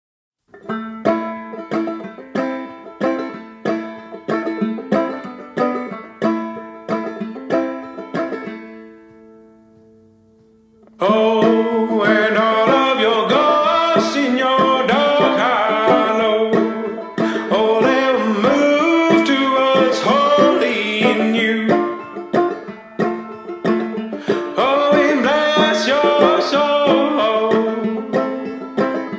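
Background music: a plucked-string melody of evenly picked notes that fades away about nine seconds in, then a fuller, louder arrangement comes in about eleven seconds in.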